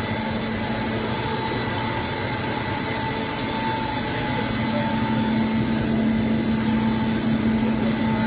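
Pet treat extrusion line running: a steady machine hum with several constant whining tones. The low hum grows a little louder about halfway through.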